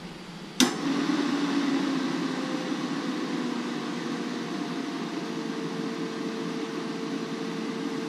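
Auto Meter battery load tester clicking on its load about half a second in, then running with a steady whirring hum as it pulls over 500 amps from a Northstar Group 31 AGM battery during a peak power test. The hum's pitch sags slightly as the load is held.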